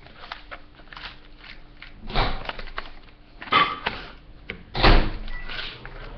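A stiff MRE food pouch being handled and cut with scissors: crinkling and small clicks, with three louder rustles, the last and loudest with a thump.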